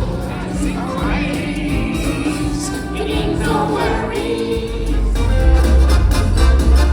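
Music with a choir singing; a heavy bass comes in near the end.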